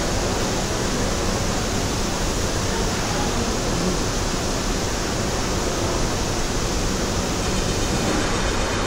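Steady, even rushing noise of air handling, with a metro train standing at the platform, doors open.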